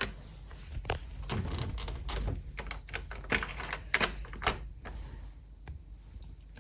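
Irregular light clicks and knocks, roughly one every half second to a second, over a faint low hum.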